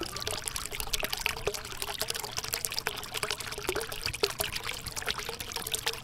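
Small tabletop cement waterfall fountain running: thin streams of water trickling from its spouts and channel into the water-filled basin, a dense, steady patter of small splashes.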